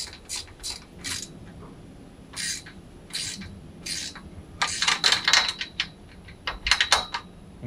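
Hand ratchet wrench cinching down the nut on a bolted clamp that fixes a wooden post to a metal greenhouse hoop: short metallic ratcheting clicks, spaced out at first, then a quick run of clicks about five seconds in and a few more near the end.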